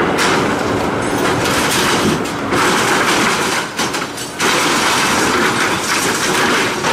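Heavy scrap-metal shredding machinery working, a loud, continuous metallic clattering and grinding that eases briefly about halfway through.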